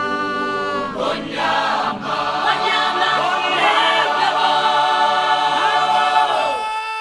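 Maasai group singing a cappella: several deep men's voices chanting together with a higher voice held above them. The deep voices stop near the end while the single high note carries on.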